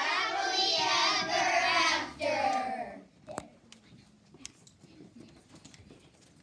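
A group of children's voices singing out together in unison for about three seconds, then stopping, followed by faint scattered knocks and shuffling.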